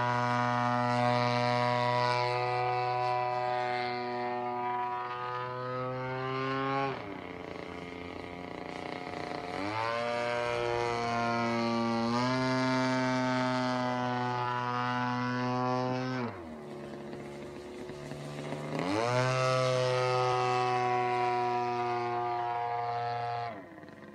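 Propeller plane's engine running at high power. It is throttled back about seven seconds in and opened up again about three seconds later, throttled back again about sixteen seconds in and opened up again about two and a half seconds later, then throttled back near the end.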